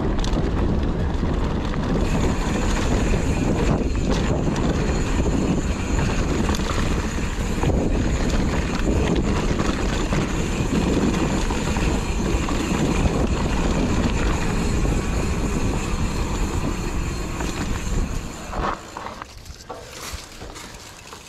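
Wind buffeting the camera microphone and mountain-bike tyres rumbling over a dirt trail at speed, a continuous rush of noise. It dies away sharply near the end as the bike slows.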